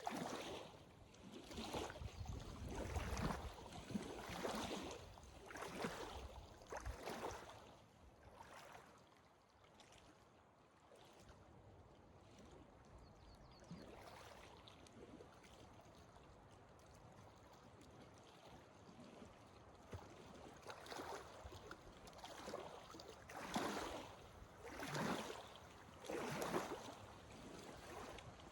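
A hiker's footsteps on the trail, about one step a second, stopping for several seconds midway and then starting again, over a faint steady hiss.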